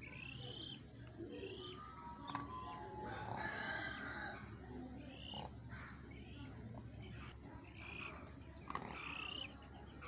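A small chick peeping repeatedly, with short high chirps about once a second.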